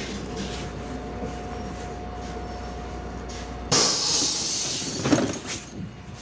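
MAZ-105 city bus running at a stop with a steady low rumble and a faint steady tone. About two-thirds of the way in, a sudden loud hiss of compressed air as the pneumatic folding doors open, fading off, then a sharp knock a little over a second later.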